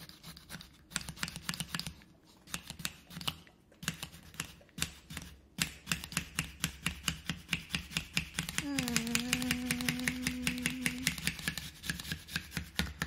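Handheld plastic garlic grater rubbed quickly back and forth on a countertop as it grates a garlic clove: a fast run of scraping clicks, several strokes a second, with a brief pause near the middle. In the second half a voice holds one long steady note for about two seconds over the strokes.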